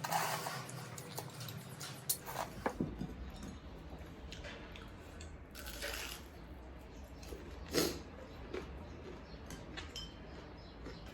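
A person eating close to the microphone: chewing and crunching food, with a few short sharp clicks and brief noisy bursts scattered through.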